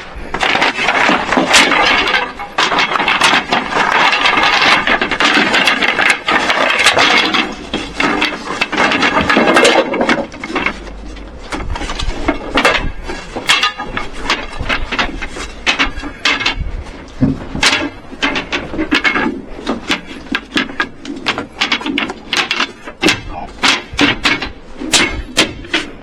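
Parts of a bed frame being worked into place: a loud, squealing scrape for about ten seconds, then a long run of quick clicks and knocks.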